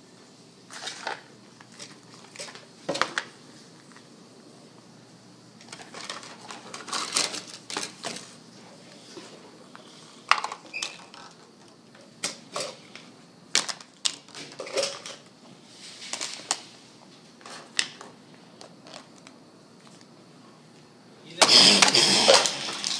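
Scattered light clicks and knocks of toy play food being handled and set down on a wooden table, with a louder burst of clatter and rustling near the end.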